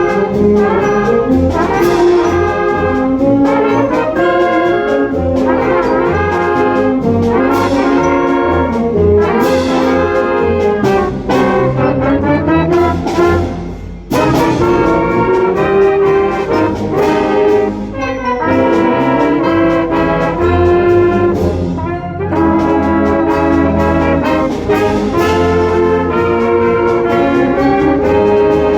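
Brass band playing, with trumpets and trombones carrying a melody over drum hits.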